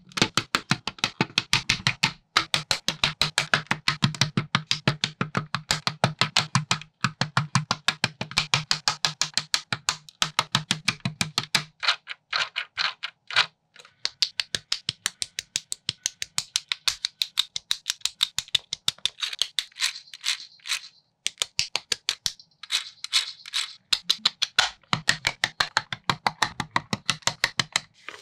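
Plastic building bricks clicking and rattling in a fast, even rhythm of several clicks a second, edited to a beat. A low hum sits underneath, drops out about twelve seconds in and returns near the end.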